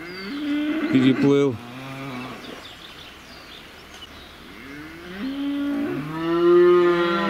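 Cattle mooing: a few short calls in the first two seconds, then one long moo starting about five seconds in, over the steady rush of a flooded spring river.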